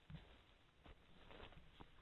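Near silence, broken by a few faint, irregular crunches of dry leaf litter under footsteps.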